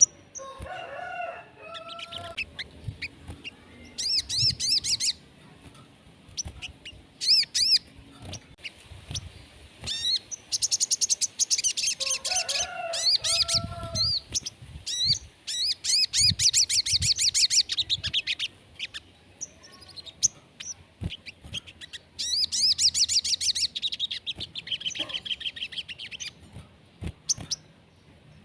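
Sogon songbird singing loudly in repeated phrases of rapid, high chattering trills, some lasting a second or two and others several seconds. Twice a lower, shorter call cuts in, about a second in and again near the middle.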